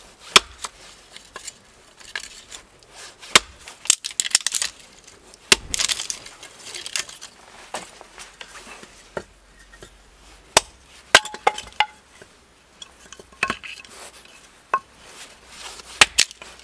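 Hatchet splitting thin wooden boards into kindling on a stump chopping block: sharp wooden knocks and cracks at irregular intervals. A rattle of loose split sticks being handled and dropped comes partway through.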